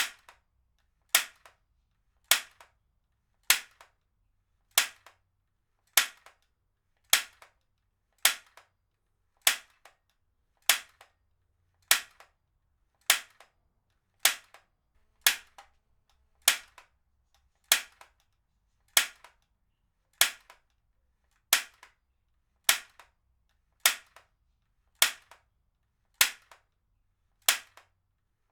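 Heavy-duty stapler firing staples over and over: a sharp snap about every 1.2 seconds, each followed by a fainter click.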